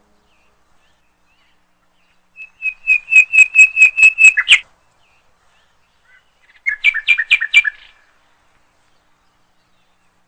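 Pet parrot chirping: a rapid run of about ten sharp, high calls, then a shorter run of about five after a pause.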